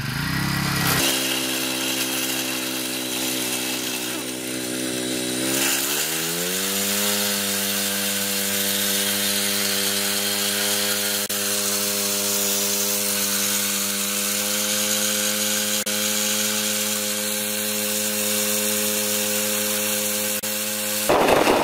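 Small 49cc petrol engine running steadily while driving a propeller on a long shaft. About six seconds in it speeds up over a second, then holds a steady, higher-pitched run.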